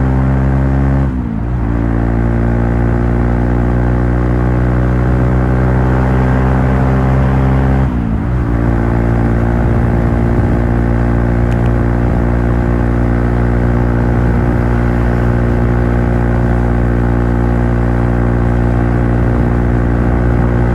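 Honda CBR150R's single-cylinder engine running at steady, held revs, with two brief drops in revs, about a second in and about eight seconds in, each recovering at once.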